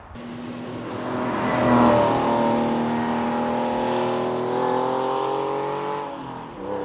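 Porsche 911 996's 3.4-litre naturally aspirated flat-six passing by with its Gundo-hacked exhaust, a bypass pipe welded between each muffler's inlet and outlet. The exhaust note swells as the car approaches, is loudest about two seconds in, and climbs gently in pitch as it pulls away, then fades out near the end.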